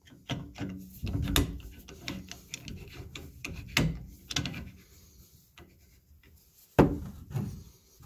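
Steel chisel blade scraping, clicking and knocking against the brass slot of a Moen 1423 balancing spool as it is worked loose in a Moentrol shower valve, in irregular strokes, with a sharp knock a little before the end.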